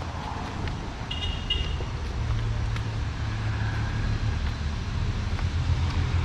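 Road traffic: a motor vehicle's engine rumbling and growing louder toward the end as it comes closer. A brief high chirp sounds about a second in.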